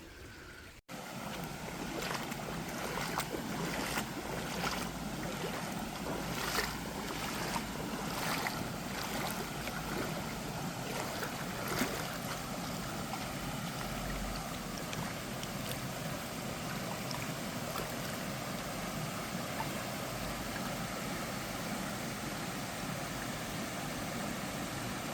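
Steady rushing outdoor noise, with a few light knocks during the first half.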